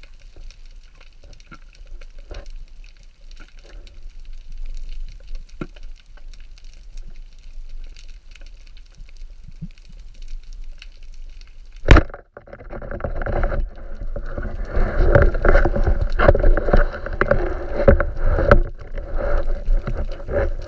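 Underwater: faint crackle and small clicks, then about twelve seconds in one sharp loud crack of a speargun being fired. Louder rough water noise follows as the diver moves in on the speared striped red mullet.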